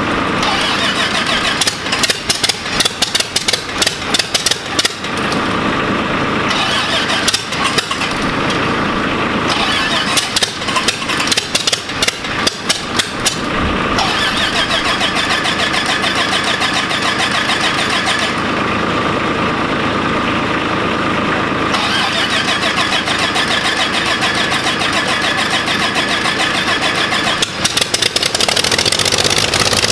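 Freshly rebuilt Lycoming O-540 horizontally opposed six-cylinder aircraft engine running on a test stand with its propeller turning. For about the first fourteen seconds it fires unevenly and runs rough, then it settles into steadier running.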